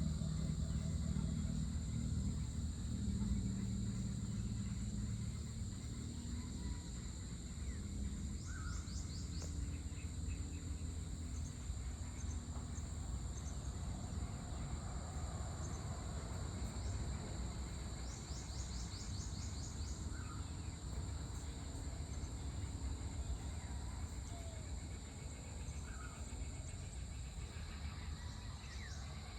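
Outdoor evening ambience: a steady high-pitched chorus of insects such as crickets, with a few short bird chirps and trills scattered through it. A low rumbling hum sits underneath, a little louder in the first few seconds.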